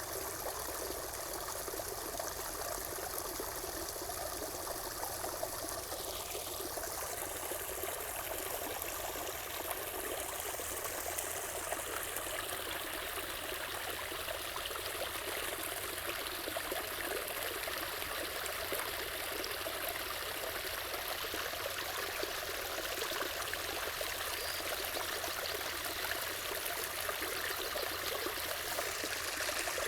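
Water flowing and trickling steadily, an even rush with no breaks.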